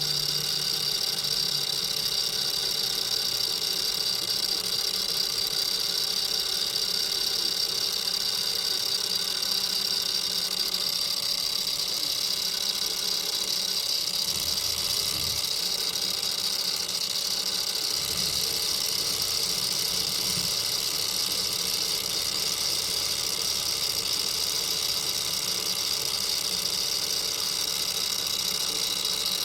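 Steady machine hum with a high-pitched whine over it, from shop machinery running at an even speed.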